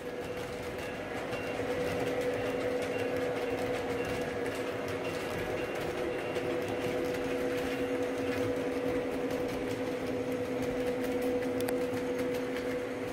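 O gauge model freight cars rolling past on three-rail track: a steady whirring rumble of metal wheels on rail with a constant hum underneath and faint clicks.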